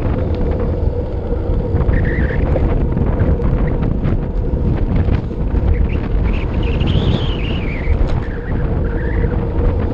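Wind rushing and buffeting over the microphone of a camera mounted on a road bike descending at speed, with a steady low hum. A faint high whine rises and falls in pitch between about six and nine seconds in.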